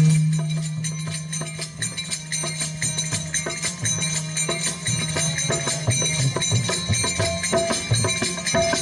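Folk dance music: hand percussion keeps a quick, steady beat, with a low held note fading out over the first two seconds.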